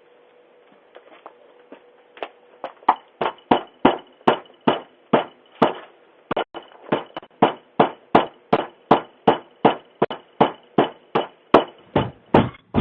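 Fast, steady pounding on a front door, about three blows a second, starting faintly and growing loud about two seconds in, picked up through a Ring video doorbell's microphone.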